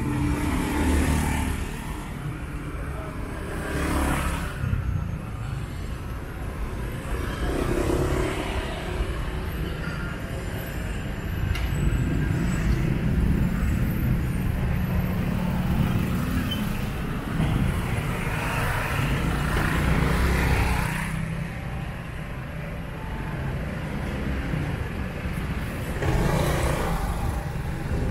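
Road traffic on a city street: a steady rumble of engines and tyres, with several vehicles passing close by, each swelling up and fading away.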